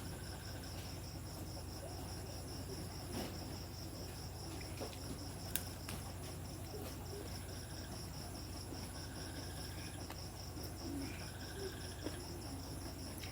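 Crickets chirring steadily in the background, a fast even pulsing, over a low steady hum, with a few faint clicks.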